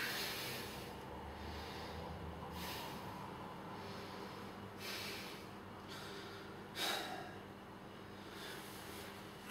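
A man breathing hard from the exertion of repeated one-legged pistol squats: a sharp, breathy exhale about every two seconds, five in all, the strongest at the start and about seven seconds in.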